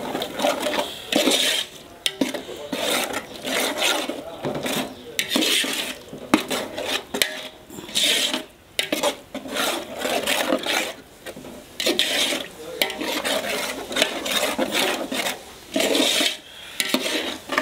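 Metal spoon scraping and stirring a thick masala paste around a large metal pot, in repeated strokes roughly one a second with sharp clinks against the pot wall. This is the ginger and garlic being worked into the tomato masala until it turns to a paste.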